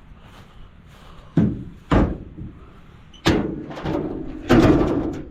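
A vehicle door being worked, with a few sharp knocks and thuds: two short knocks, then two longer, rattling thumps.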